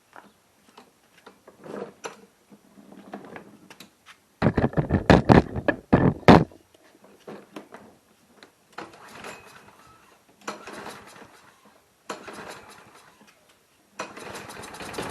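Briggs & Stratton 6.75 hp push-mower engine being pull-started on starting fluid: several recoil-starter pulls in separate bursts, the loudest about four seconds in, with the engine firing briefly and then catching and running near the end. It fires but is running only on starting fluid, with no gas in the tank.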